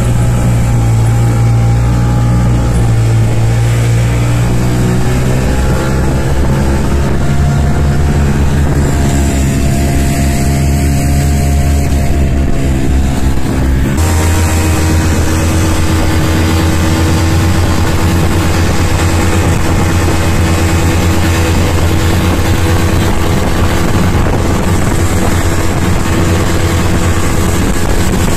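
Snowmobile engine running under way. Its pitch shifts up and down through the first half, and the sound changes abruptly about halfway through to a steadier, lower note.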